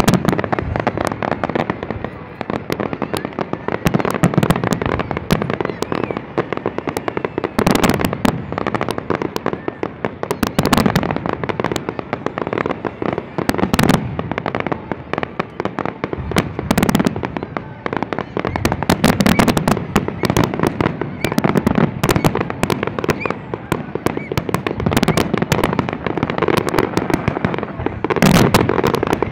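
Fireworks display: a dense, unbroken barrage of aerial shells bursting, many bangs a second.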